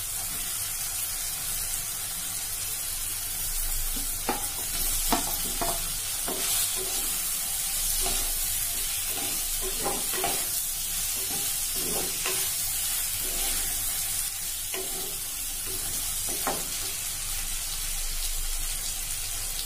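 Boiled taro root pieces frying with onion, garlic and tomato in oil, stirred with a wooden spatula: a steady sizzle, with the spatula scraping and knocking against the pot every second or two from about four seconds in.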